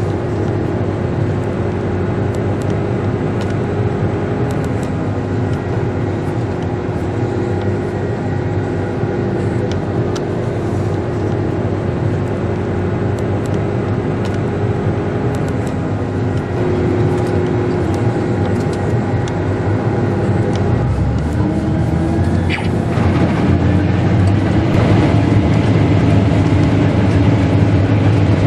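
Case IH 8120 Axial-Flow combine harvester running under load while harvesting rice, its engine and threshing machinery making a steady drone. About twenty seconds in, the drone shifts in pitch and grows a little louder.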